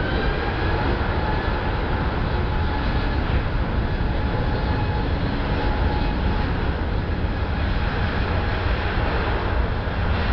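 Airbus A380's four jet engines at takeoff thrust as the airliner accelerates down the runway: a loud, steady jet noise with a deep rumble underneath and a faint high fan whine on top.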